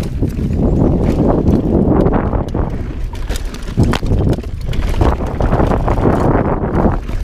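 Mountain bike riding fast on a dirt singletrack: tyres rolling over dirt and leaves, with the bike clattering and knocking over bumps and roots, and wind rushing over the camera microphone.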